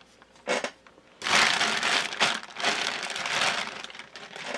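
Clear plastic bag packed with disposable plastic pipettes crinkling as it is handled and lifted away: a short rustle about half a second in, then steady crinkling from just over a second in that fades toward the end.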